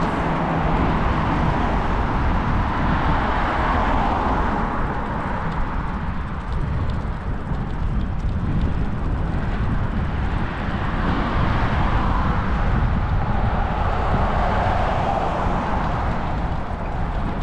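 Road traffic passing on a main road, car tyre and engine noise swelling and fading several times, over a steady low rumble of wind on the microphone of a moving bicycle.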